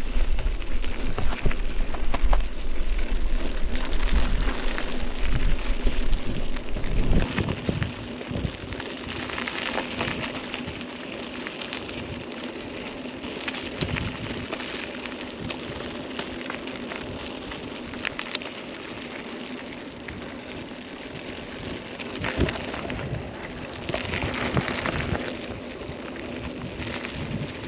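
Bicycle tyres rolling over a rough country track, a steady crackling noise, with wind rumbling on the microphone for about the first seven seconds.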